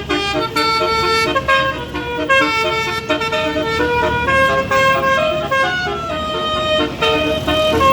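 Bus basuri horn playing a tune: several air-horn tones sounding together, stepping quickly from note to note in a melody with only brief breaks.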